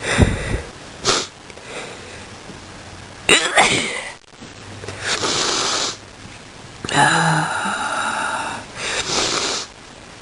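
A person coughing and sneezing: a few sharp explosive bursts in the first four seconds, then three long, noisy, rasping breaths.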